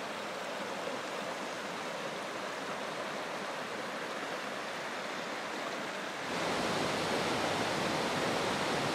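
Shallow rocky stream rushing over boulders and riffles, a steady rush of water. About six seconds in it turns abruptly louder and fuller as a small waterfall cascading over rock ledges takes over.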